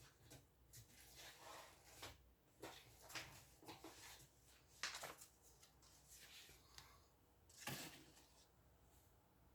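Near silence with faint, scattered clicks and rustles, a few sharper ones about five seconds in and near the end.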